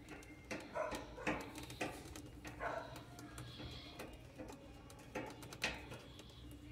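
Faint, irregular plastic clicks, knocks and creaks as the split air conditioner's indoor-unit casing is worked loose during disassembly, over a steady low hum.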